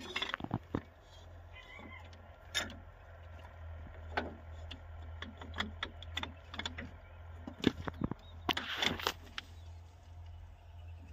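Metal clinks, knocks and scrapes as a sprayer's PTO driveshaft yoke is worked by hand onto a tractor's splined PTO shaft, with a brief high squeak about two seconds in and a longer scrape near the end.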